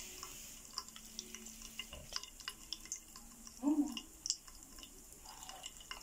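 Popping candy crackling inside a glass bottle of liquid: faint, irregular tiny pops and ticks. A brief louder sound comes a little past halfway.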